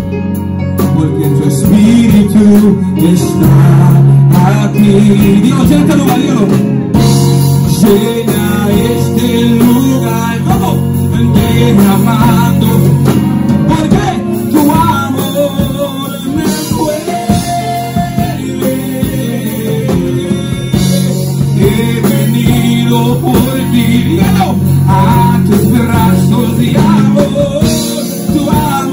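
Band music led by guitar, with some singing.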